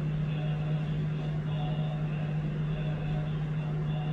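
Steady low hum holding one constant pitch, over a faint even background rumble.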